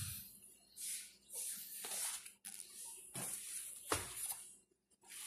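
Lettuce and leafy greens being handled, the leaves rustling in short bursts, with one sharp knock about four seconds in.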